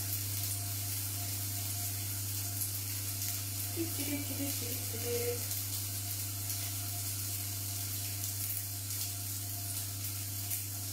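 Tofu cubes sizzling and crackling as they fry with garlic and ginger in a frying pan on a gas hob, under a steady low hum.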